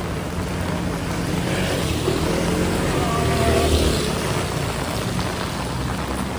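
A motor vehicle passing on a rain-soaked street, swelling and fading away around the middle, over the steady hiss of heavy rain.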